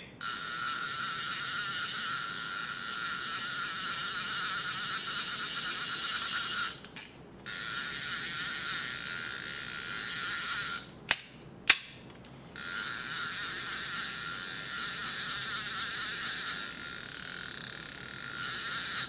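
Daiwa 22 Seaborg 200J DH electric reel's drag, tuned to give a cicada-like buzz as the spool turns against it. A steady high buzz, broken off twice, at about seven seconds and again around eleven to twelve seconds, with a few sharp clicks in the gaps.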